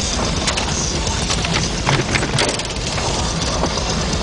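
2007 Jeep Wrangler driving on a dirt trail: a steady rumble of engine and tyres, with scattered short knocks and rattles from the bumps.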